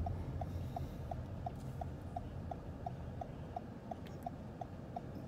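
Car's turn-signal indicator ticking steadily, about three short ticks a second, over the low rumble of the car heard from inside the cabin.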